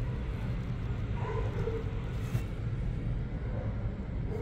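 Steady low rumble inside a moving cable-car gondola cabin as it travels along its cable.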